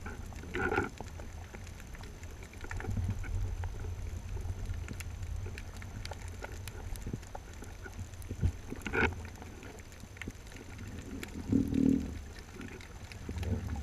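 Muffled underwater rumble of water moving around a camera housing as a freediver swims, swelling and easing. Faint scattered clicks run through it, with a few short muffled bursts: about a second in, around the middle and near the end.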